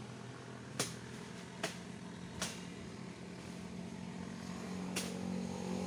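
Four sharp chopping strikes into santol wood, three about a second apart and one more a few seconds later, over a steady engine drone that grows a little louder near the end.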